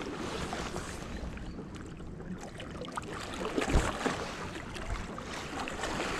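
Wind buffeting the microphone over a steady wash of sea water. A single loud knock comes a little before four seconds in, likely from handling the rod and camera.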